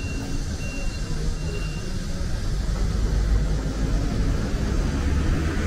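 Road traffic on a city street: a steady rumble of engines and tyres, growing a little louder in the second half as a vehicle comes closer.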